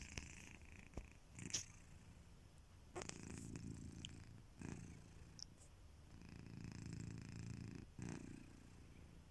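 Sleeping domestic cat snoring softly: a faint low rumble that swells and fades with each breath. A few brief clicks come in the first few seconds.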